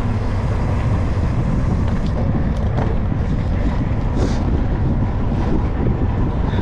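Wind buffeting the microphone of a camera on a moving racing bicycle, heard as a steady low rumble.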